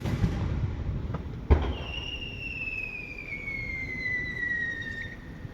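Fireworks display: a sharp bang about a second and a half in, then a long, high whistle that slowly falls in pitch for over three seconds.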